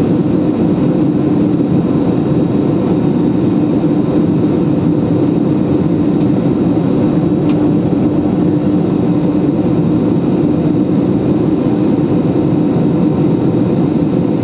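Jet airliner's engines and airflow heard from inside the cabin in flight: a steady rushing noise with a constant low hum.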